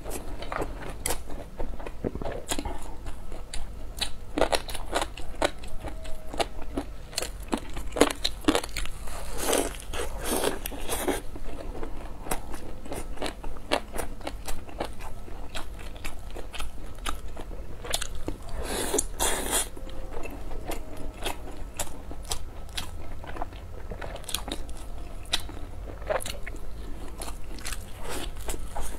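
Close-miked eating: crisp bites and chewing of a deep-fried flatbread, a dense, irregular run of small crunching clicks with a louder bout of crunching about two-thirds of the way through.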